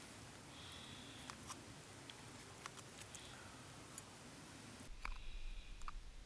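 Faint clicks and light scrapes of a metal utensil against a food tin and camp cooking pot. About five seconds in, a steady low rumble comes in.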